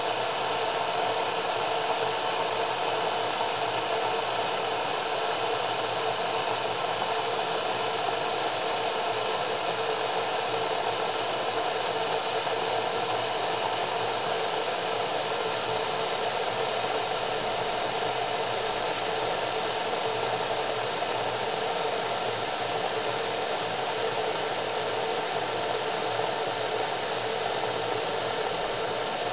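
Sinbo SCM 2922 electric Turkish coffee pot heating its contents below the boil, a steady hiss from the liquid warming in the stainless-steel pot.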